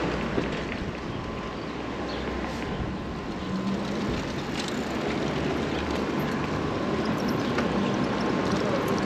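Steady rush-hour street traffic heard from a moving bicycle, with the rumble of a streetcar running along the street.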